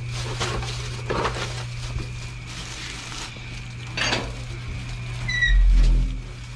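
Light handling clatter and clinks of objects being moved, over a steady low hum. About five and a half seconds in comes a short rising squeak, followed at once by a dull low thump, the loudest sound here.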